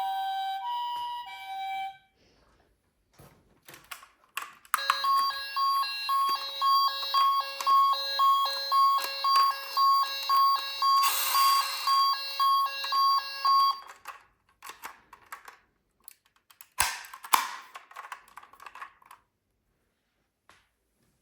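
Toy emergency vehicle's electronic sound unit: a two-tone hi-lo siren that stops about two seconds in. After a few plastic clicks, an electronic beeping alarm pulses about twice a second for around nine seconds. Scattered clicks and one sharp knock follow as the toys are handled.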